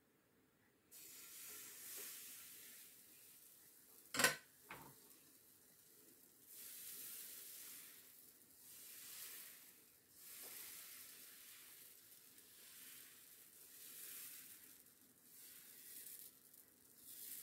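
Crêpe batter sizzling as it hits and is spread across the hot plate of an electric crêpe maker, a faint hiss that swells and fades every couple of seconds. One sharp knock about four seconds in.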